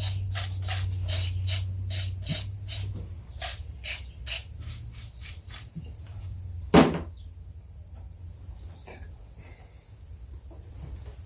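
Light metallic taps and clicks, about three a second, fading out after the first few seconds, then one louder knock about seven seconds in, from handling the muffler parts of an Echo SRM-230 string trimmer.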